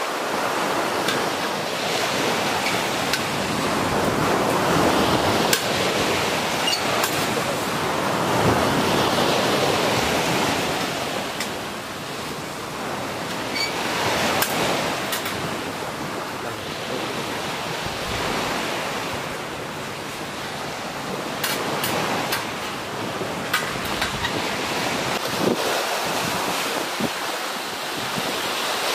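Surf washing onto a sandy beach, its noise swelling and fading every few seconds, with a few light clicks over it.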